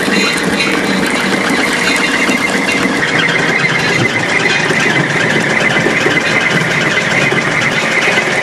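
Foremost QG-1814 granulator, driven by a 25-hp three-phase electric motor, running with its vacuum discharge blower: a loud, steady mechanical din with a high whine running through it.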